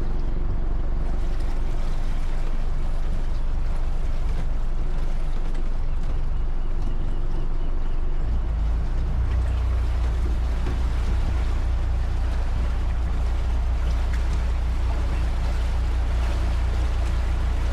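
Motor cruiser's Volvo Penta inboard engine running steadily under way, with water and wind noise over it. The low rumble gets heavier about eight seconds in.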